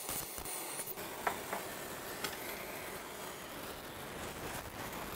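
Multiplaz plasma welding torch burning with a steady hiss, with a few faint ticks in the first couple of seconds.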